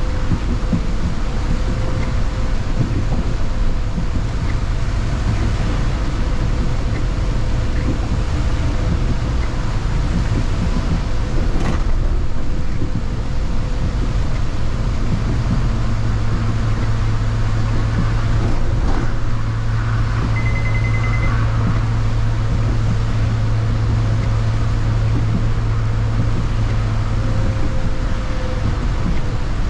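City bus driving along: steady engine and road rumble, with a low drive hum that sets in about halfway and fades near the end, one knock near the middle and a short high beep about two-thirds in.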